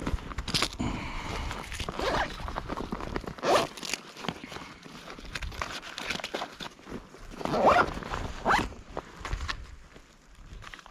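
Close rustling and scraping of handled gear, with a few short zip-like pulls, the loudest near the middle and again a little before the end.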